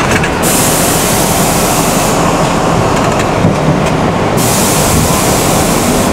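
R62A subway car running as it pulls out of the station and gathers speed, a loud steady rumble of wheels and motors heard from inside the car. A strong hiss rises over it about half a second in, stops about two seconds in, and returns about four and a half seconds in.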